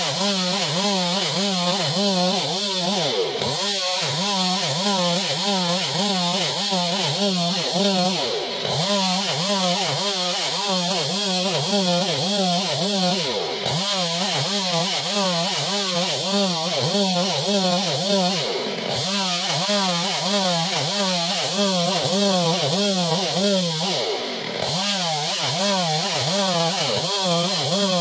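Petrol chainsaw running at high speed while cutting lengthwise slots into a squared timber beam. Its pitch wavers quickly as the bar works through the wood, and about every five seconds it sags briefly and picks up again.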